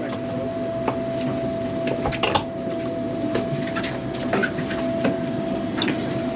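Steady droning hum of a boat's running machinery, holding one tone, with scattered clicks and knocks from tackle and people moving on the deck.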